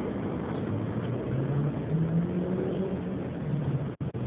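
Steady rumble of motor vehicle noise, with a low engine tone that rises and falls. The sound cuts out twice, very briefly, near the end.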